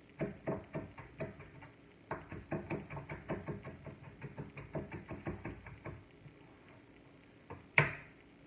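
Chef's knife chopping fresh parsley on a cutting board: quick, even knocks of the blade on the board, about five a second, in two runs with a short pause a little over a second in. The chopping stops about six seconds in, and a single sharp knock follows near the end.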